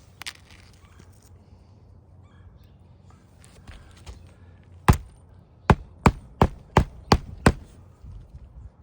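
Hammer driving nails into roof shingles: one strike about five seconds in, then a quick run of six strikes, about three a second, after faint handling clicks.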